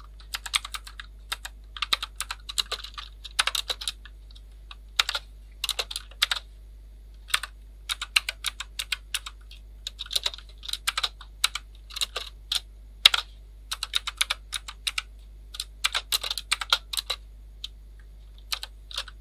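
Typing on a computer keyboard: quick, irregular runs of keystroke clicks broken by short pauses.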